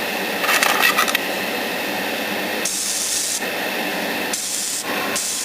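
Airbrush spraying thinned acrylic paint in short bursts of hiss, with a crackly, uneven stretch about a second in: sputtering from a paint flow problem that the painter can't pin down.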